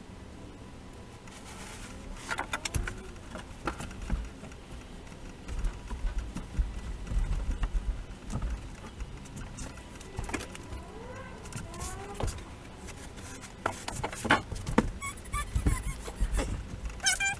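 Scattered knocks, clatter and rustling from hands-on work inside a stripped camper as fiberglass insulation batts are laid into a wall bay, with a low rumble underneath at times.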